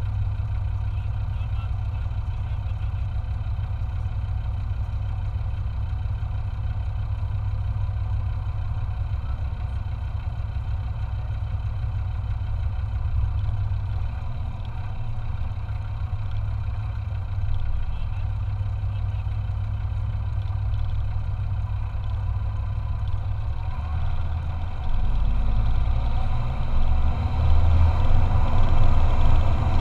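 Land Rover Discovery 2's Td5 five-cylinder turbodiesel idling steadily. About 25 seconds in it gets louder and deeper as the vehicle starts down the steep slope.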